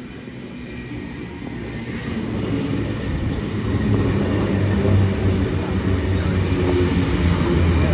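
Sydney Trains K-set electric suburban train pulling into the platform, its running noise growing louder over the first few seconds and then holding, with a low steady hum under the rumble of the wheels.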